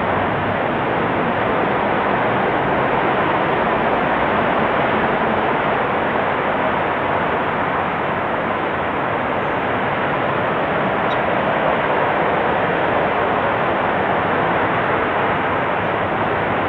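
SpaceX Merlin 1D Vacuum kerosene rocket engine in a sustained hotfire on a test stand: a dense, even rushing noise that holds steady without rising or falling.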